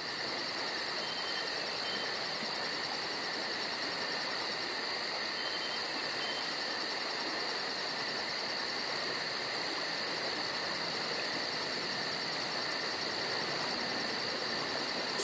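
Steady chorus of insects trilling, like crickets, with a fast, even pulsing and a constant high pitch.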